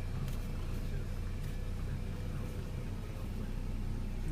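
Steady low hum and rumble inside a car's cabin.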